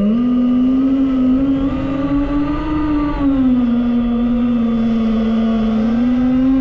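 DJI FPV drone's motors and propellers buzzing in flight, heard close up. The pitch steps up at the start, climbs a little further, drops about three seconds in and rises again near the end as the throttle changes.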